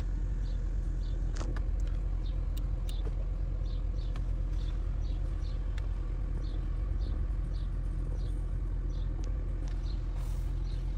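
Audi parking-sensor warning beeping, short high beeps about two a second as the car backs toward an obstacle, over the low steady hum of the running engine heard inside the cabin.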